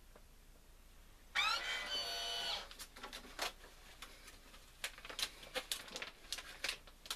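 A countertop vacuum sealer's motor starts with a rising whir and runs steadily for about a second, then stops; after it come scattered crinkles and clicks of a plastic vacuum-seal bag being handled.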